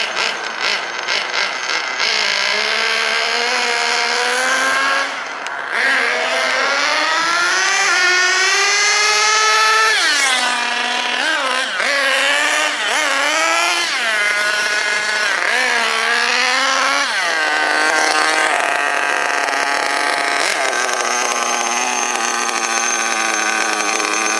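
Nitro RC buggy's small glow-fuel engine, pulsing at low revs for the first couple of seconds, then revving up and down again and again as it is driven, its high buzzing pitch rising and falling with the throttle.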